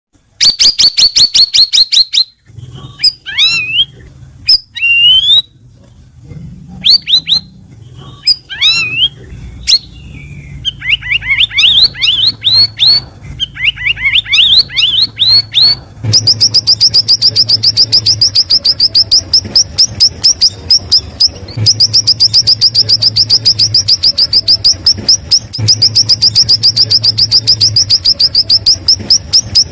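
Cucak rawis bulbul singing: first a fast run of high chirps, then varied down-slurred whistled phrases, then long strings of rapid repeated high chirps, several a second, broken by two short pauses. A faint low hum runs underneath.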